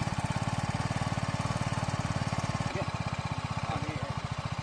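BMW G 310 GS's 313 cc single-cylinder engine idling steadily in neutral just after being started, an even, rapid pulsing beat.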